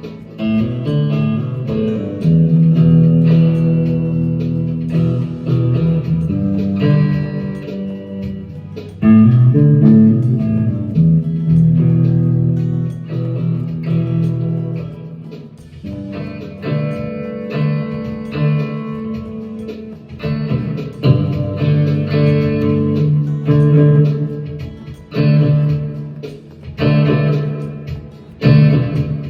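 Cooder Caster electric guitar with gold foil pickups, played through a Supro Roadhouse amp. Chords are struck and left to ring, with picked notes between them in a bluesy style.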